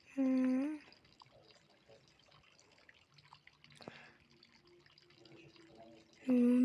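A short hummed note, then a faint stretch of tap water running and dripping, with a sharp click about four seconds in; the humming starts again near the end.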